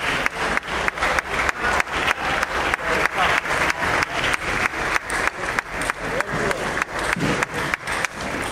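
Spectators clapping in a fast, steady rhythm of about five claps a second, with faint voices underneath. The rhythm breaks off near the end.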